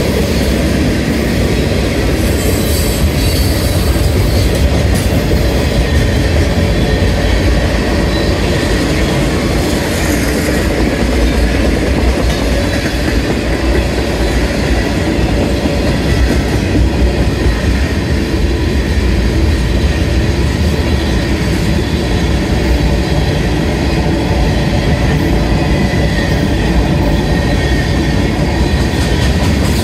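Freight cars of a mixed manifest train rolling past close by: a steady, loud rumble of steel wheels on the rails.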